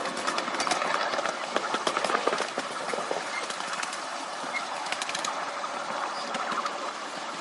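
Miniature railway train running on its track: a steady rolling noise of the wheels on the rails, with many quick clicks and knocks from the wheels and couplings, busiest in the first three seconds.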